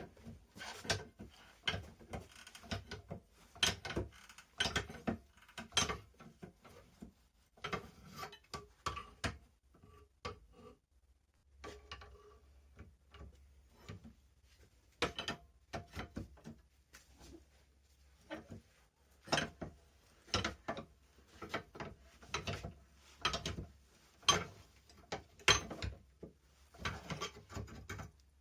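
Irregular light hammer knocks on steel at the anvil, one or two a second with a short pause about ten seconds in, as the bar for an S hook is worked.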